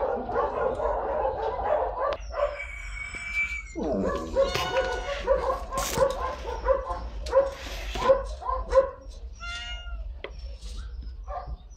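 Domestic cat meowing, a run of short repeated calls in the middle and a longer pitched meow near the end.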